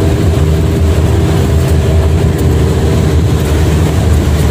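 Mountain river rapids rushing over boulders: a loud, steady roar, heavy in the low end.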